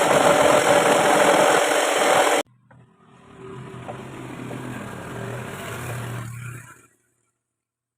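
Homemade scroll saw running loudly while cutting a wooden board; the sound cuts off abruptly about two seconds in. A quieter steady motor hum follows, then dies away near the end.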